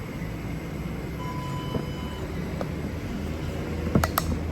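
Steady low mechanical rumble of a fast-food shop's background, with a short single-tone beep about a second in and a few sharp clacks near the end.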